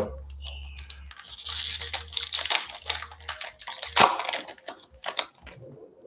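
Foil wrapper of a Magic: The Gathering collector booster pack being torn open and crinkled by hand: a dense run of crackles with a loud tear about four seconds in, dying away near the end.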